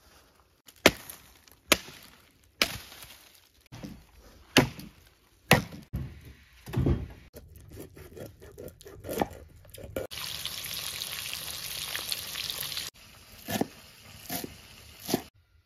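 Large kitchen knife striking a wooden cutting board, a string of sharp knocks a second or so apart, as food is cut and chopped. About ten seconds in, a steady hiss lasts about three seconds, then a few more knife knocks follow.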